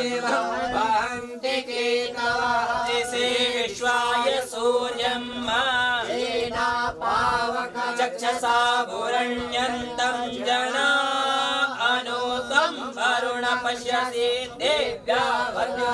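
Hindu mantras chanted in a continuous sing-song recitation, over a steady low drone.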